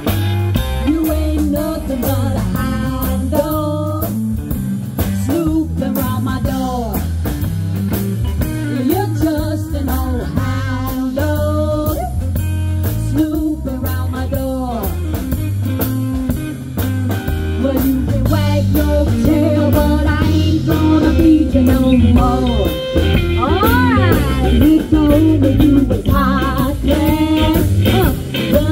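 Rock-and-roll music in an instrumental break: a guitar plays a lead line with bending notes over a steady beat.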